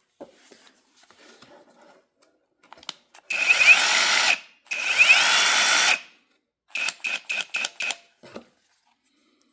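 Hyper Tough brushless cordless impact wrench spinning freely with no load: two runs of about a second each, each opening with a rising whine as the motor spins up. These are followed by about six quick trigger blips in a row.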